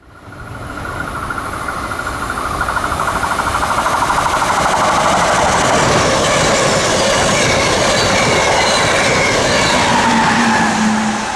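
A train passing close by: the rumble and clatter of its wheels on the rails build over the first few seconds and stay loud. In the second half a whining tone slides down in pitch, and the sound eases just before the end.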